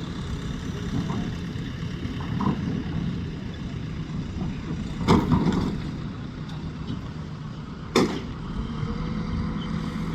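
A steady low rumble, with two sharp cracks about five and eight seconds in.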